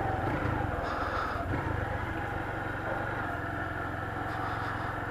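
Honda CG 150 Fan motorcycle's single-cylinder four-stroke engine running steadily while riding.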